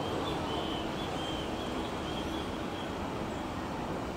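Airbus A330-200 jet engines at taxi power, a steady rumble with a faint constant hum, while a bird chirps a run of short high notes over the first half.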